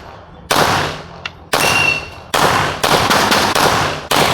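A string of pistol shots fired during a timed competition stage: three about a second apart, then several more in quick succession, each with a short echoing tail. A brief high ringing follows the second shot.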